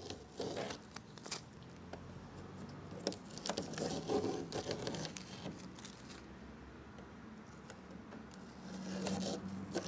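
Tape being peeled off a spray-painted dollhouse, in irregular tearing pulls and scrapes.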